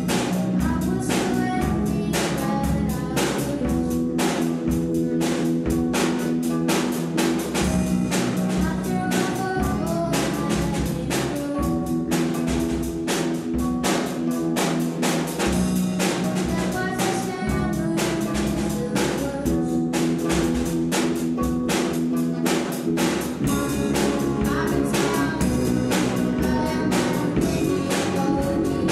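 Rock band playing a song on electric guitars, electric bass and drum kit, with a steady driving beat.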